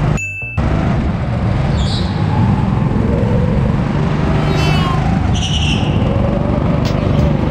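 Go-kart running hard around an indoor track, heard from onboard: a steady rumbling drive and wind noise, with several short tyre squeals as it slides through the corners. The sound cuts out briefly just after the start.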